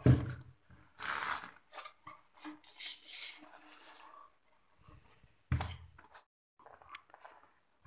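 Plywood amplifier box being handled and turned over by hand: wooden thumps as it is set down, one at the start and another about five seconds in, with wood scraping and rubbing against the work surface between.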